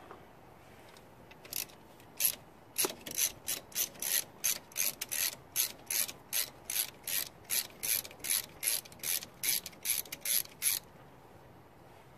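Hand socket ratchet clicking, about three or four clicks a second, as it backs out a bolt on a VW Beetle's rear axle bearing cover; the clicking stops about a second before the end.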